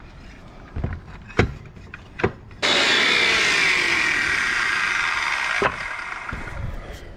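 A few knocks as the circular saw is set on the board, then the saw starts suddenly and cuts through an old wooden board for about three seconds, and the blade winds down once released.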